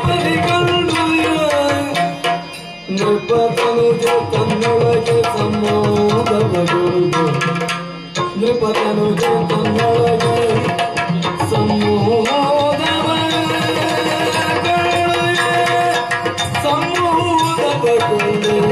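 Yakshagana music: a singer's wavering melody over a rhythm of hand-played maddale drum strokes, with two brief lulls, about three seconds in and again near eight seconds.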